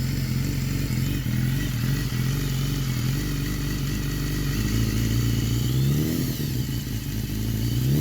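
2016 BMW S1000RR's inline-four engine idling steadily, its revs rising briefly twice, about six seconds in and near the end. It is being warmed up in the cold with no coolant in it, and the exhaust is still cold.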